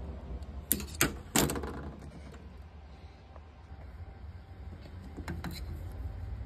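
Dial calipers clicking and clacking against a metal disc as they are handled: three sharp metallic clicks about a second in and two lighter ones near the end, over a steady low hum.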